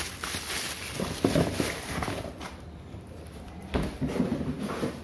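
Clear plastic bag crinkling and rustling as it is handled, with a knock near the end.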